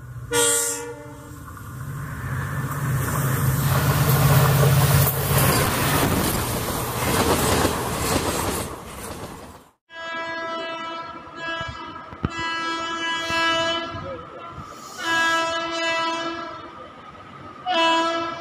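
A train horn gives a short blast, then a train passes at speed with a rumble of wheels on rails that swells and fades. After a cut, a WAP-7 electric locomotive's horn sounds several times, in blasts of a second or so, as the train approaches the platform.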